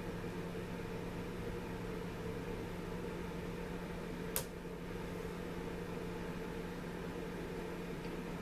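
Steady low background hum of a small room, with one sharp click about four seconds in.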